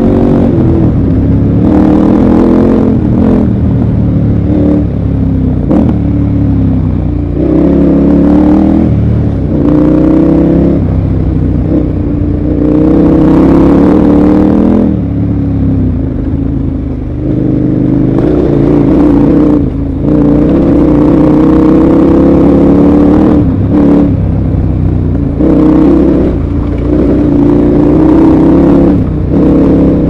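KTM 1190 Adventure R's V-twin engine pulling on a gravel road, its pitch rising and falling again and again as the throttle is rolled on and off. Scattered sharp clicks of gravel come from under the tyres.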